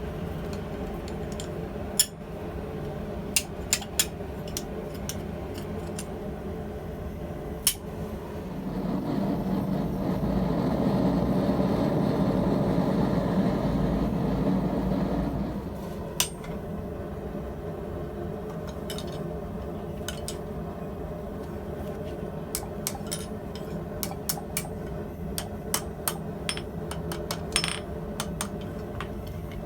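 Scattered light metal clinks and taps of steel and tools being handled in a blacksmith's shop, over a steady hum. From about 8 s to 15 s a louder rushing noise swells up, then stops fairly suddenly.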